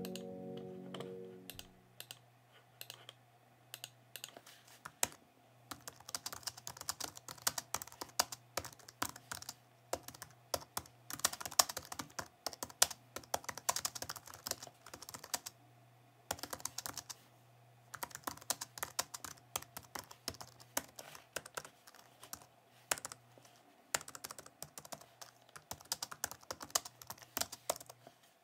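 Computer keyboard and mouse clicking in irregular rapid bursts, with a faint steady low hum underneath.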